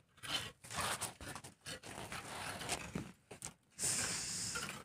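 Bricklayer's steel trowel scraping and spreading cement mortar on a brick wall: a run of short, uneven scrapes, with a longer, brighter scrape near the end.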